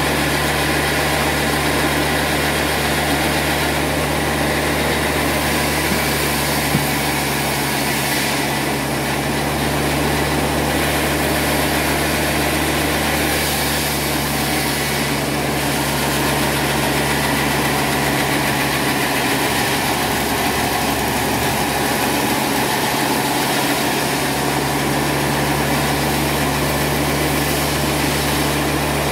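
Band sawmill running steadily, a constant machine drone and hum with a single short knock about seven seconds in.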